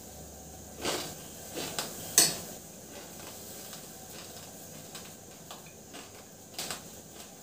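Crunching of crispy fried moong dal being bitten and chewed: a few sharp crunches one to two seconds in, the loudest just after two seconds, and a quick pair more near the end.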